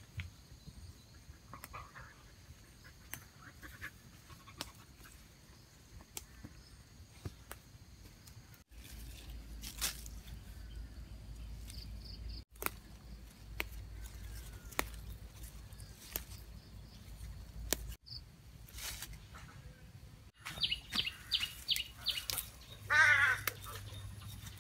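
Leaves and stems rustling and snapping as leafy greens are picked by hand, with birds chirping around. Near the end a quick run of chirps is followed by a short warbling call, the loudest sound.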